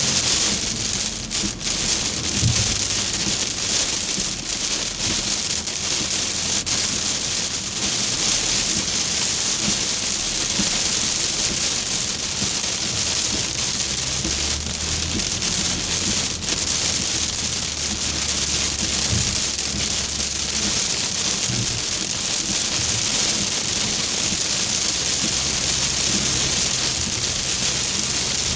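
Heavy rain beating steadily on a car's roof and windshield, heard from inside the cabin, with a low hum beneath and a few brief clicks.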